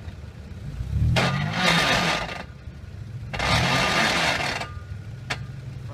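An off-road SUV's engine idling, then revved hard twice under load, each rev rising in pitch with a loud hiss of spinning tyres and flung dirt: wheelspin on a steep loose-dirt climb. A sharp click near the end.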